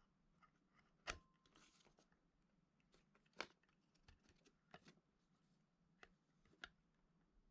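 Near silence broken by a few faint, sharp clicks and light taps, spaced irregularly about a second or two apart; a brief steady tone rings just after the first.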